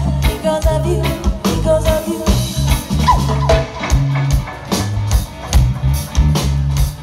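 Live reggae band playing, with a deep, repeating bass line and a steady drum-kit beat; a woman's lead vocal sings over it in the first half.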